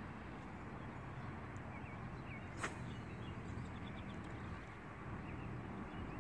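Steady low outdoor background noise by a pond, with a few faint bird chirps and one sharp click about two and a half seconds in.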